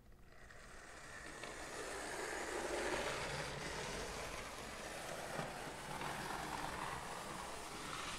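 1950s Marx F3 toy-train locomotive running noisily around the track, a steady mechanical whirring from its motor and drive. It grows louder over the first couple of seconds, then holds fairly even.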